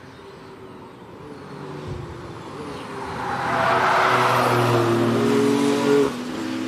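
Mercedes-AMG One's turbocharged 1.6-litre V6 accelerating toward and past the microphone, growing louder with its engine note climbing in pitch, then dropping off suddenly about six seconds in.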